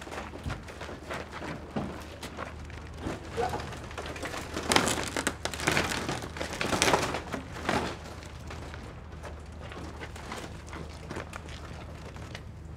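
Crinkling and rustling of the giant fried-chicken sculpture's translucent skin on its wire mesh as the large pieces are handled, in irregular bursts that are loudest and thickest about five to eight seconds in, over a steady low hum.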